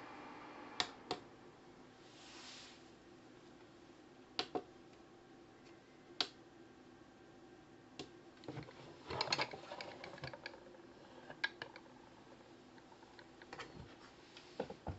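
Scattered sharp clicks and taps, some single and some in quick clusters, over a faint steady hum.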